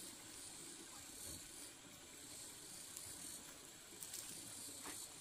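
Faint, steady background hiss with a couple of faint clicks about four and five seconds in.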